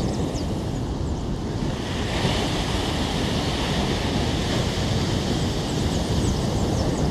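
Surf breaking and washing up a sandy beach, the hiss of the breakers growing louder about two seconds in, with wind buffeting the phone's microphone.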